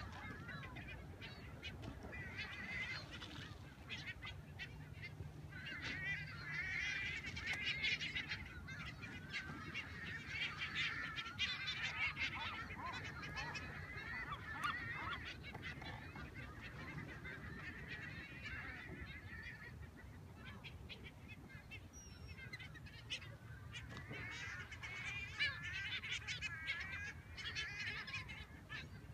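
A large flock of seabirds calling over the water: many short, overlapping cries, thickest in the middle and again near the end.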